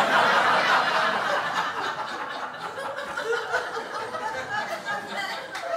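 Audience laughing, loudest at the start and dying down gradually.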